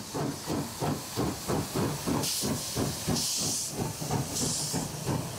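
Steam locomotives 77.250 and 33.132 pulling away together, their exhausts chuffing fast and slightly out of step, about four or five beats a second. Three loud bursts of hissing steam venting at the cylinders come in the second half.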